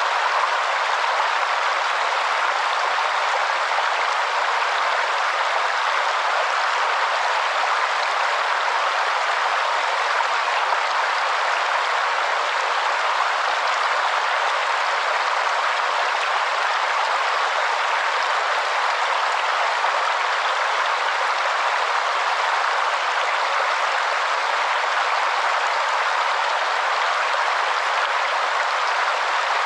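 Waterfall: a steady, even rush of falling water with no deep rumble.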